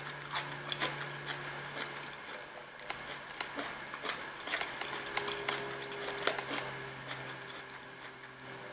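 Close-up eating sounds: chewing, with scattered sharp clicks and scrapes of a plastic fork in a plastic takeout tray and hummus cup.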